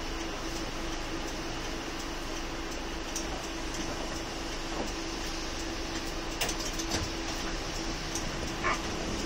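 Steady running noise heard inside a city bus in slow stop-and-go traffic: an even engine and road hum with one constant droning tone, and a few light clicks or rattles near the end.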